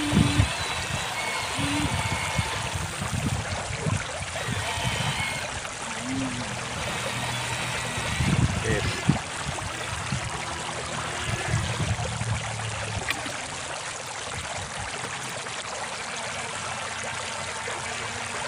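Shallow river water running and trickling steadily, with faint voices in the background and a few low bumps and splashes near the start and about eight seconds in.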